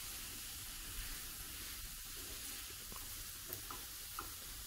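Chopped celery and onion sizzling in ghee in a stainless-steel skillet while being stirred with a spatula: a steady, high frying hiss with a few light scrapes of the spatula against the pan.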